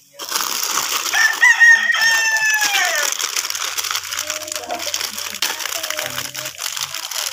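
A rooster crows once, a call of about two seconds that falls in pitch at the end. Under it runs a steady crinkling of plastic packaging being handled.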